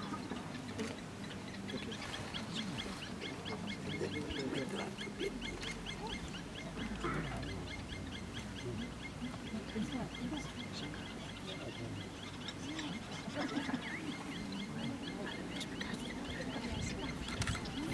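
Wild birds chirping and calling: a fast, steady run of high chirps, with scattered lower calls.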